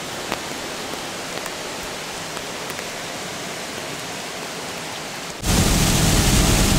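Steady hiss of rain falling over floodwater, with a few faint ticks. About five seconds in it gives way abruptly to a much louder, lower rumbling noise.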